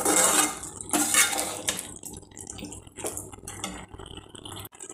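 Metal spoon stirring and scraping chicken masala in an aluminium kadai, with several strokes in the first two seconds and then quieter scrapes. The moist masala, wet with juices released in frying, squelches under the spoon.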